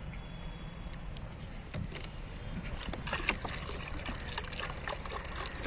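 Water pouring from a plastic bottle into a small bowl, splashing and trickling, starting about halfway through, after a few light clicks.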